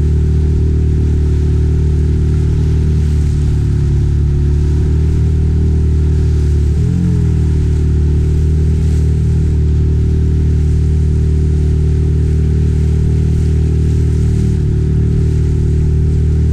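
Six-horsepower outboard motor running steadily under load, its pitch dipping briefly about seven seconds in before settling back.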